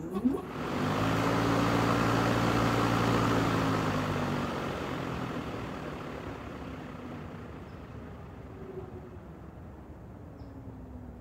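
Electric motor and blade of a Lawnmaster 36-volt lawnmower converted to Milwaukee 18-volt Li-Ion packs, starting up with a steady hum and whir. After about four seconds the hum drops away and the whir dies down gradually as the blade coasts to a stop. In 18-volt mode the mower switches itself off; the owner traces this to its circuit board's under-voltage protection cutting the power.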